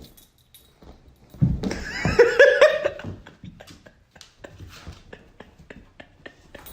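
A dog's brief whining, howl-like call about one and a half seconds in, its pitch bending up and down, followed by a run of light clicks.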